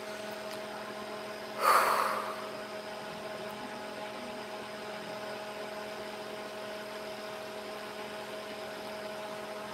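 Steady electrical hum made of several fixed tones. About two seconds in comes one short, breathy exhale close to the microphone.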